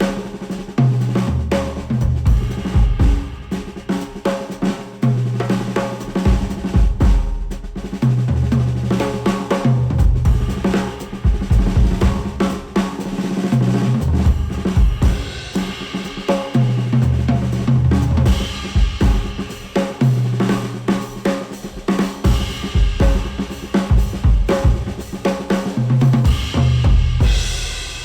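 Drum-driven music with a busy kit (snare, kick drum, hi-hat) over repeated bass notes, played back through HIFIMAN Edition XV headphones and picked up by microphones. It starts to fade out at the very end.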